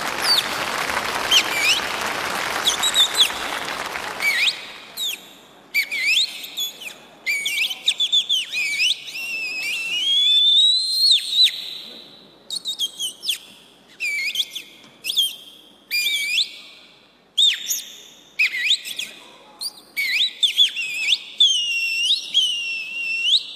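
High, bird-like whistled calls: clusters of short chirps and quick rising and falling glides, repeating with brief pauses. A noise that runs under them at first fades out about four seconds in.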